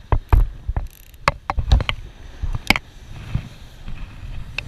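Irregular sharp clicks and knocks, about a dozen packed into the first three seconds, from a spinning reel and surfcasting rod being handled right at the microphone, over a low wind rumble.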